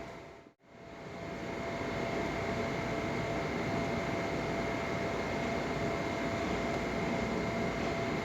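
Steady mechanical hum and hiss with two faint steady whining tones, dropping out briefly about half a second in.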